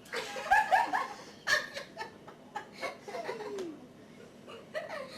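Laughter in short bursts, loudest in the first second and a half, followed by scattered quieter giggles and voice sounds.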